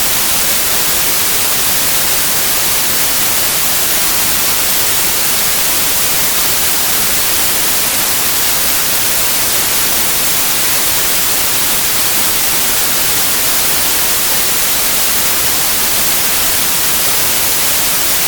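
Television static: loud, steady hiss of white noise, even throughout, with its energy weighted toward the high end.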